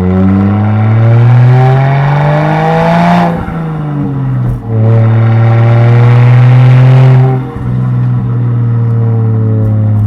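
Turbocharged Lexus IS200 1G-FE straight-six with a straight-pipe exhaust, accelerating hard. Its pitch climbs for about three seconds, breaks briefly at a gear change, runs loud and fairly steady, then drops away as the throttle closes near the end.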